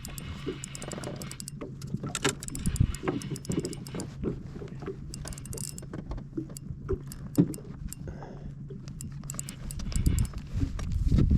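A boat's motor running with a steady low hum, over irregular clicks and knocks of gear being handled, with a louder low rumble near the end.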